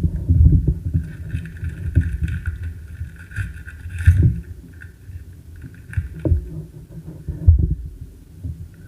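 Handling noise from trading cards and their packaging being worked on a tabletop close to the microphone: low rumbling and irregular knocks, with a short crisp rustle about four seconds in.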